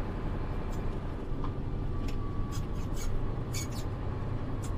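Steady low engine drone heard inside a truck cab at low speed, with scattered small clicks and rattles from the cab.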